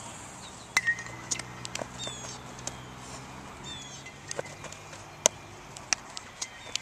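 Baseball infield practice: a series of sharp knocks and pops as a baseball is hit and fielded, the ball smacking into leather gloves, the loudest about five seconds in.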